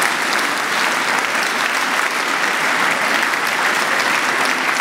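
Audience applauding: many people clapping steadily, a dense even patter of hands.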